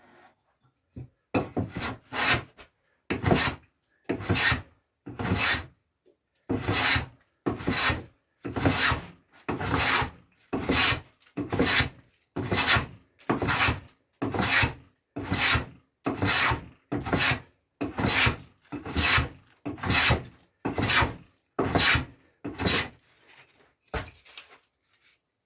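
A hand tool stroked over and over across a piece of wood, about one even scraping stroke a second with a short silent gap between strokes as the tool is drawn back.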